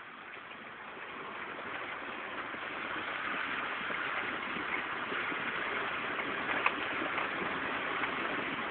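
Water rushing and splashing around a Mk1 Mitsubishi Pajero as it wades through a river ford, heard from inside the cab, growing louder over the first few seconds and then holding steady.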